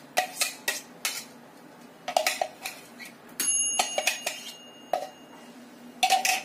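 Kitchenware knocks and clinks as mashed banana is shaken out of a clear cup into a mixing bowl of whipped batter. There are irregular taps throughout, and one clink about three and a half seconds in rings on for about a second.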